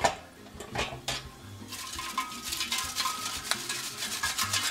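Cooked potato wedges being tossed in an air-fryer basket: a few separate knocks, then from about two seconds in a quick run of scraping, rattling and clinking against the basket.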